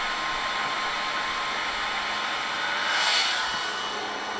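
Small quadcopter drone hovering, its propellers giving a steady whirring hum that swells briefly about three seconds in.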